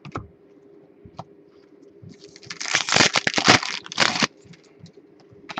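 Foil trading-card pack wrapper being torn open and crinkled, a dense crackling that lasts about two seconds in the middle, with a few light clicks from cards being handled around it.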